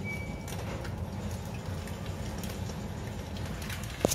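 Eggs frying in a pan: a faint steady sizzle with small crackles over a low hum. A sharp knock near the end as the camera is picked up.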